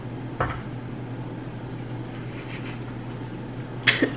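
People sipping drinks from plastic cups, giving a short sound about half a second in and a sharper, louder one near the end, over a steady low room hum.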